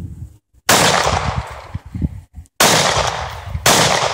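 Glock pistol in .45 Auto fired three times: a shot, then about two seconds later another, then a third a second after that. Each shot is a sharp crack with a long decaying tail.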